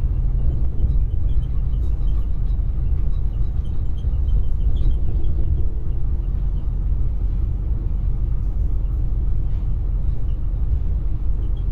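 Steady low rumble of a moving coach bus, engine and road noise heard from inside the passenger cabin.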